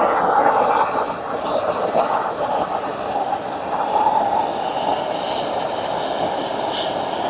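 Propane torch flame burning with a steady rushing noise while scorching a carved wood surface to darken it.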